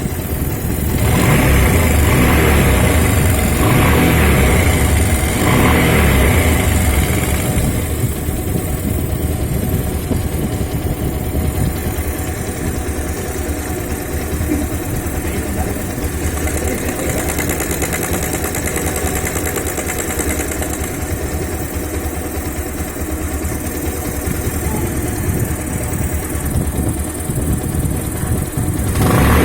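Bajaj Pulsar 150's air-cooled single-cylinder engine running with timing chain noise. It is raised a few times in the first seven seconds, then runs steadily at idle.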